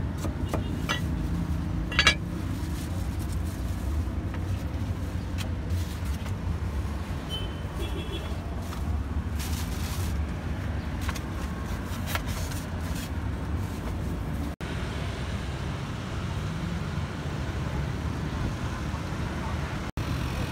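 Steady hum of street traffic, cars and motorbikes passing, with scattered sharp knocks of a cleaver striking a chopping block in the first half, the loudest about two seconds in.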